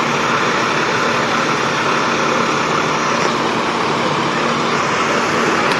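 Diesel engines of parked fire trucks running steadily, a loud even noise with a low constant hum.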